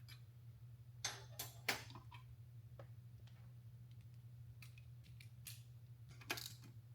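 Light metallic clicks and clinks of small transmission parts, the detent plate and its bolt, being handled and fitted: three sharper clicks about a second in, scattered fainter ticks, and another few clicks near the end, over a low steady hum.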